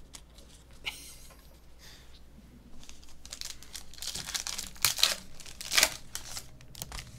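Foil trading-card pack being torn open and crinkled by hand, with two loud crackling rips about five and six seconds in.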